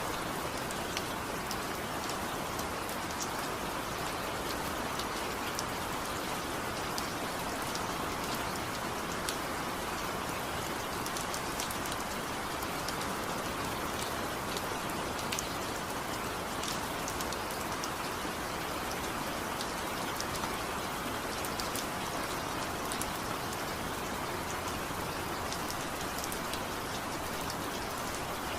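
Steady rain falling, an even wash with individual drops ticking sharply here and there, with no thunder.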